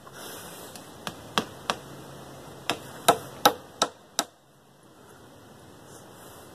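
A hammer driving nails through slabs of bark into log roof runners: about eight sharp strikes in an uneven rhythm, starting about a second in and stopping a little after four seconds.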